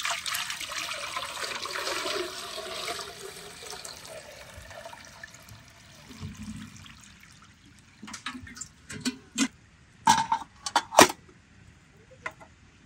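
Water poured from an aluminium milk can into a samovar's water chamber, a gushing splash that tapers off over about five seconds. Later come several short sharp metal knocks as the filled samovar's lid is handled.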